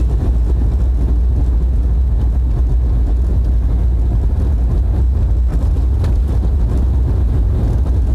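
Jeep driving along a road: a steady low rumble of engine and tyre noise.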